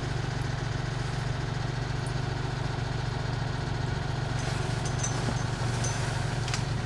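A steady low mechanical hum, like a small engine or motor running, with a few faint ticks in the second half.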